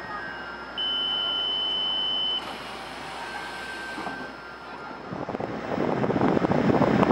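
Taiwan Railways EMU800 commuter train's door signal: a single steady high-pitched electronic beep lasting about a second and a half, as its doors open at the platform. From about five seconds in, a loud rough rushing noise takes over.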